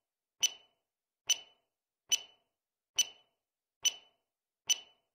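Countdown timer sound effect: a sharp, bright tick with a short metallic ring, repeated evenly six times, slightly faster than once a second.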